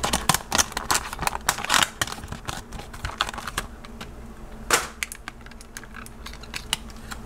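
Clear plastic blister package around a 1:64 die-cast car being pried open by hand. There is a quick run of plastic clicks and crackles over the first couple of seconds, then scattered clicks, with one louder click a little past the middle.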